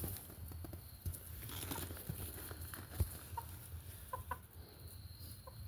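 Domestic chickens clucking quietly, a few short clucks in the second half, over a low rumble with a couple of dull knocks.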